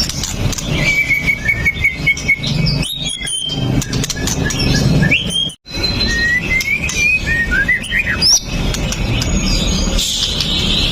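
White-rumped shama singing: a run of rapid repeated whistled notes, then loud whistles and quick up-and-down glides. The song breaks off completely for an instant about halfway.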